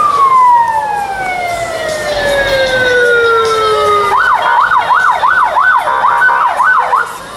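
Vehicle siren: a held wail that slides down in pitch over about four seconds, then switches to a fast up-and-down yelp of about two to three sweeps a second, which cuts off shortly before the end.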